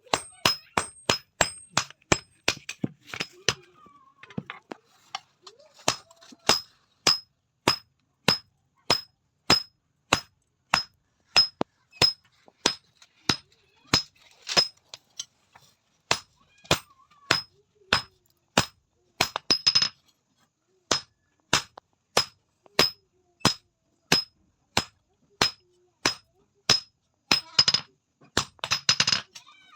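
Blacksmith's hand hammer striking steel by hand forging, about two blows a second, each with a short high metallic ring. Twice there is a quick flurry of lighter, faster taps.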